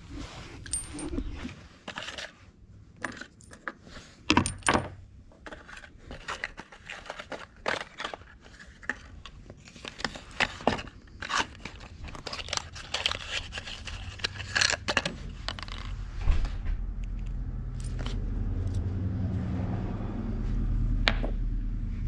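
Irregular metallic clinks, rattles and scrapes of hand tools and parts being handled while spark plugs are changed. A steady low hum comes in about two-thirds of the way through.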